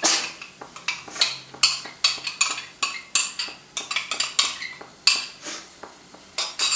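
A spoon scraping and tapping against a small glass bowl as thick yoghurt is scraped out into a pot: an irregular run of sharp clinks and scrapes, the loudest right at the start.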